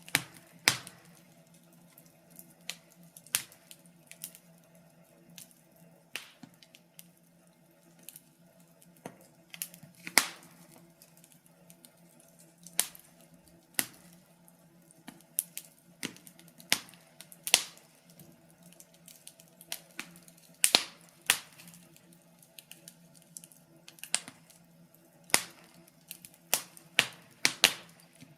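Wood fire crackling in a fireplace: irregular sharp pops and snaps, some loud, scattered over a faint steady hum.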